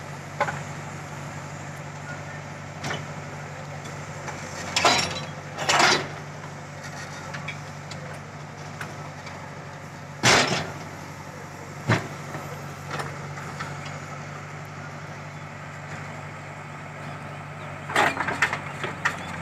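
JCB 3DX backhoe loader's diesel engine running steadily while its backhoe loads earth into a steel tractor trolley. Several loud knocks and thuds break in: two around five and six seconds in, a sharp one about ten seconds in, another about two seconds later, and a quick cluster near the end. These come from the bucket and the earth it dumps into the trolley.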